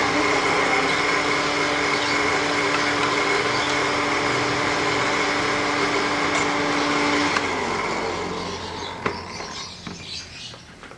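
A motor running steadily with a held hum, which slides down in pitch about seven seconds in as it winds down; the noise then fades, with a few clicks near the end.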